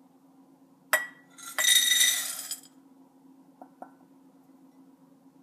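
A glass Pyrex measuring cup clinks once against a bowl with a short ring. Then Lucky Charms cereal and marshmallows pour from it into the bowl, a dense rattling rush that lasts about a second, followed by two light ticks.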